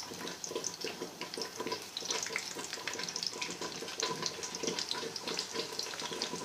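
Chopped garlic sizzling in hot ghee in a metal pan, a steady crackle of many small pops as it starts to fry for a tadka.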